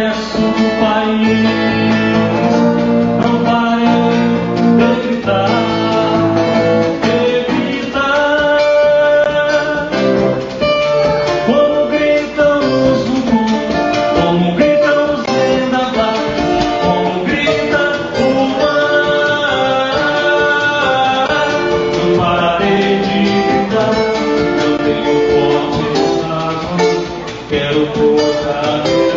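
A song played live, with guitar accompaniment and a singing voice.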